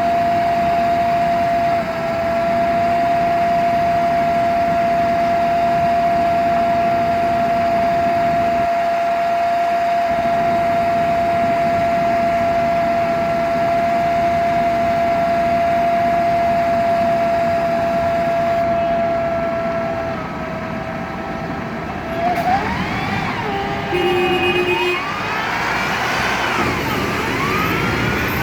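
MAN Lion's Classic city bus idling, its Voith automatic transmission giving a steady high whine over the engine. Near the end the bus pulls away, and the transmission whine rises and falls through the gears, with a brief beep partway through.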